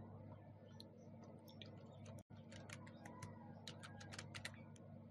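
Computer keyboard being typed on: faint, irregular key clicks in a short run, over a steady low hum.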